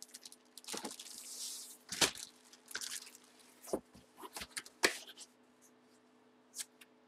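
A cardboard trading-card box being handled and moved by hand: a soft rustle, then several sharp knocks and taps, over a faint steady hum.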